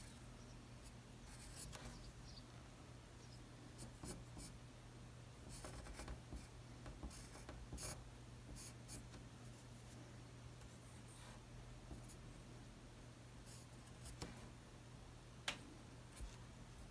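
Pencil scratching on paper in faint, short, irregular shading strokes, with one sharper tick near the end.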